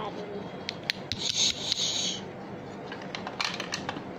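Toy kitchen play pieces being handled: a few light clicks, then a scraping rub lasting about a second, then more clicks near the end.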